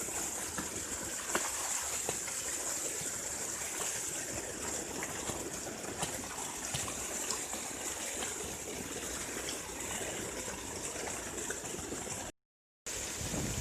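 Water rushing and splashing steadily, with a brief total dropout near the end.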